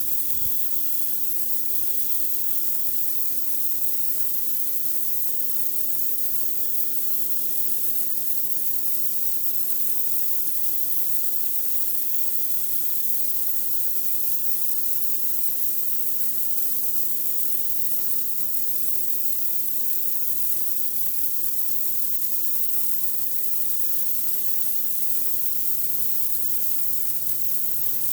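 High-pressure water from a pressure washer spraying onto a concrete driveway: a steady, even hiss, with the washer's machine hum running underneath.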